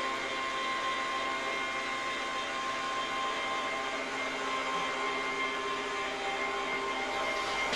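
A steady machine hum of several fixed tones, unchanging in pitch and level.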